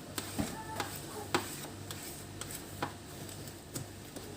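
Scattered light ticks and taps of handling noise, irregularly spaced, over a steady low hum.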